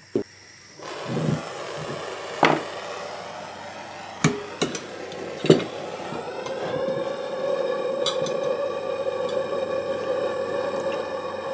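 A propane torch lit with a lighter, its flame hissing steadily from about a second in, with several sharp knocks as the torch and its tank are handled and set down on the wooden bench. From about seven seconds in a steady hum joins the hiss as the torch flame fires into the end of a copper pipe.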